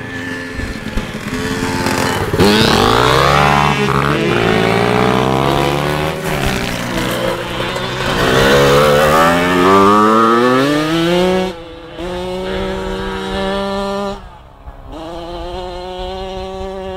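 An 85cc two-stroke motocross bike engine is heard at close range. It revs up through several rising pulls for about ten seconds, then the throttle shuts and the note falls abruptly to a steadier, lower run. Near the end it briefly dips before holding a steady note.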